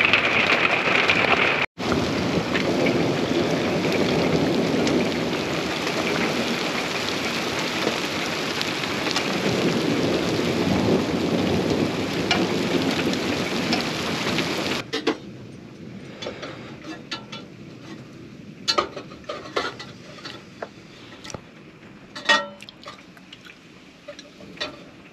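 Heavy rain pouring down with rolling rumbles of thunder for about the first fifteen seconds. It then cuts to a much quieter stretch with scattered light clicks and knocks.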